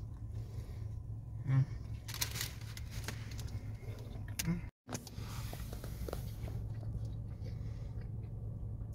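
Steady low hum inside a parked car's cabin, with a few faint crinkles and chewing sounds as a tortilla chicken wrap is bitten and eaten. The sound cuts out completely for a moment about five seconds in.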